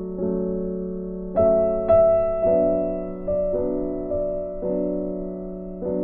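Background piano music: slow notes and chords struck about once a second, each left to ring and fade.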